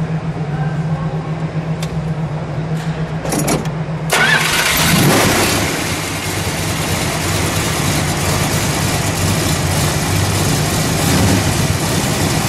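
A 1970 Plymouth Road Runner's 383 cubic-inch big-block V8 is started: it catches about four seconds in, flares up for a moment, then settles into a steady idle, which sounds smooth.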